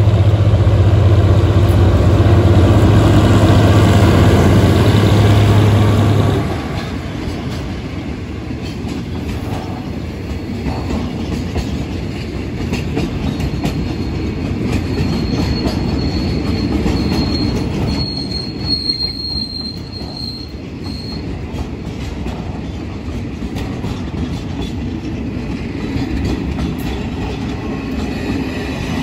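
A GE diesel-electric locomotive passes close by with a loud engine drone that drops away suddenly about six seconds in. It is followed by a long string of bogie boxcars rolling past with rail clatter, and a thin wheel squeal about halfway through.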